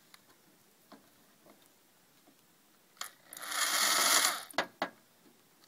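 Corded electric drill driving a wood screw into a pre-drilled hole in a plywood saw handle. The drill starts about three seconds in, runs steadily for about a second and a half, then stops.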